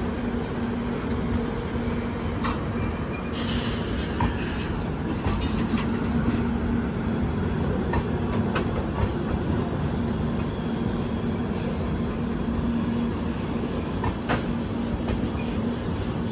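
Passenger train coaches rolling past on the rails: a steady running noise with a constant hum, and scattered clicks of the wheels over rail joints.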